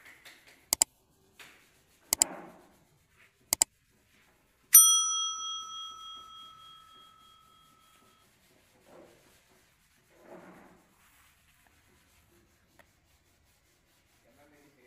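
Subscribe-button sound effect: three mouse clicks about a second and a half apart, then a single bell ding that rings out and fades over about three seconds. Soft rubbing of a cloth on wood comes between them and later on.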